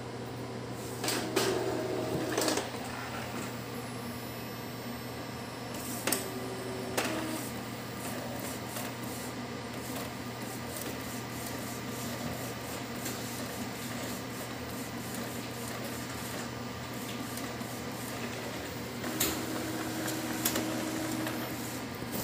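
Epson L3110 inkjet printer printing a nozzle check pattern: its motors run with clicks and short whines as the page is drawn in, printed and fed out, over a steady low hum.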